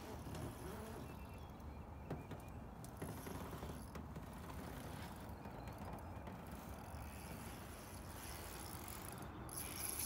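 Fishing reel mechanism working as a large hooked carp is played on light line, with a few faint clicks.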